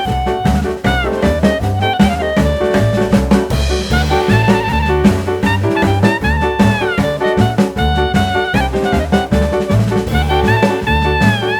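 Upbeat jazz background music with horns, saxophone and a drum kit keeping a steady swing beat.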